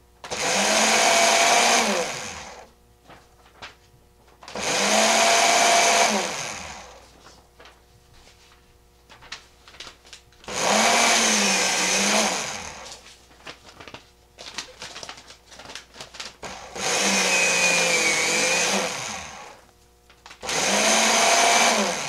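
Old electric paper shredder running in five separate bursts of about two seconds each. The motor whines and then winds down at the end of each burst, with faint rustles and clicks between the runs.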